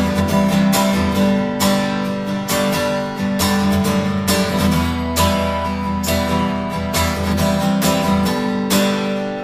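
Background song in an instrumental passage between sung lines: guitar strummed in a steady rhythm over sustained notes.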